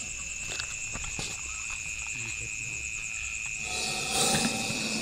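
Steady chirring of night insects, a high trill held on two pitches throughout, with a brief louder hissing noise about four seconds in.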